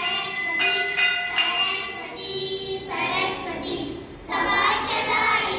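A brass puja hand bell rung over and over during arati, its ringing strokes about half a second apart, for about two seconds. About three seconds in, a group of voices, children among them, starts singing a devotional song.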